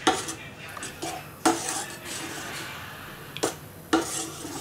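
Metal spoon stirring thick ragi and pearl millet porridge in a metal pot, with a low scraping in between four sharp clinks of the spoon against the pot. The stirring keeps the simmering porridge from sticking to the bottom and turning lumpy.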